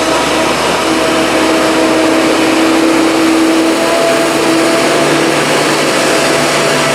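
Heavy diesel farm machinery working during forage harvesting of green rye: a loud, steady drone with engine tones that shift slightly in pitch about four seconds in.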